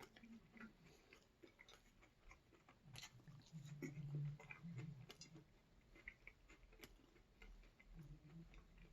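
Soft, close chewing of food, with faint crunches and wet mouth clicks. A brief low hum comes in near the middle.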